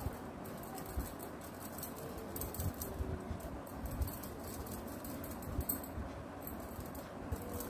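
Quiet patting and rustling as a makeup sponge is dabbed against the face to blend in liquid foundation, with a few scattered soft thumps.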